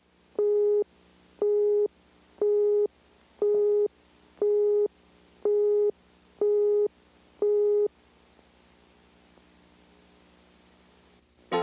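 Videotape countdown leader beeps: eight short steady tones, one a second, one for each number counted down from ten, stopping after three. A faint low hum runs underneath.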